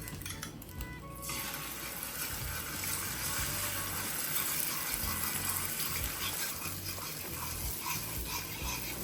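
Water running from a tap, starting suddenly about a second in and running steadily, with background music underneath.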